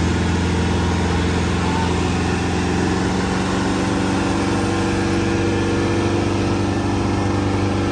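Off-road vehicle engine running at a steady speed, its low hum holding even with a slight change in pitch about three seconds in.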